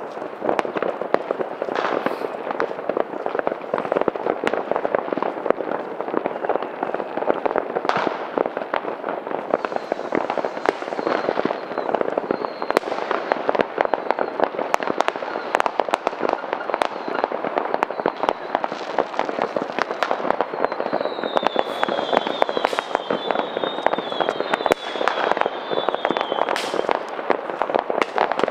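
New Year's fireworks and firecrackers going off in many places at once: a dense, unbroken crackle of bangs. High whistles from whistling fireworks come in about a third of the way in and again for several seconds near the end.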